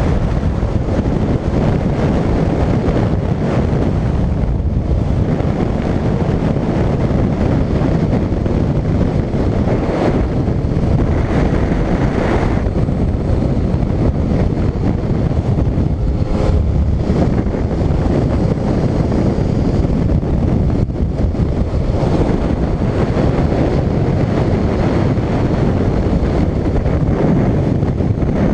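Wind rushing and buffeting over the microphone of a camera riding on a moving 125 cc motorcycle, with the bike's engine running at cruising speed underneath.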